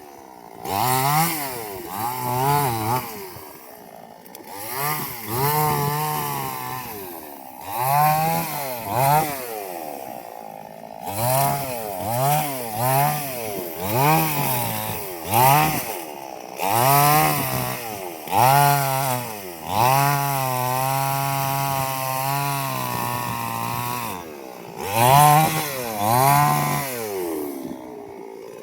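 Two-stroke chainsaw engine revved up and down over and over, its pitch climbing and dropping with each throttle squeeze, and held steady for a few seconds about two-thirds of the way through.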